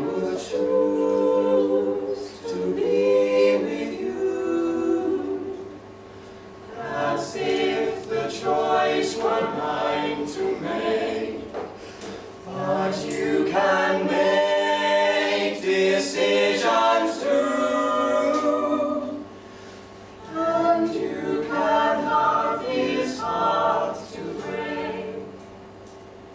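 A mixed six-voice a cappella group, men and women, singing a slow song in close harmony without accompaniment. The voices come in long phrases broken by short pauses.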